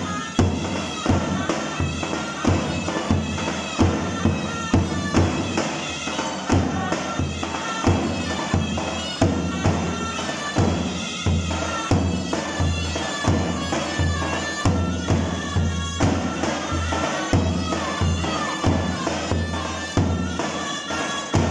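Turkish folk dance music for the Erzurum bar: a shrill reed pipe, the zurna, playing a melody over a steady davul drum beat.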